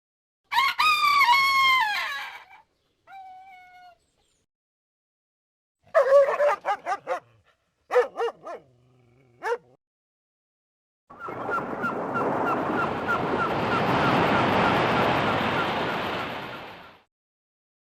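Motorola V741 mobile phone sound-effect ringtones played one after another: short dog-like whimpers and yips with gliding pitch, then a steady hiss of about six seconds with about four ticks a second running through it.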